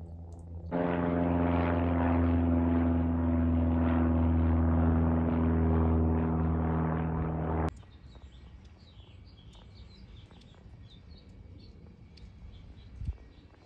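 Steady, loud droning of a propeller aircraft's engine that starts suddenly and cuts off abruptly about eight seconds in, then faint birds chirping.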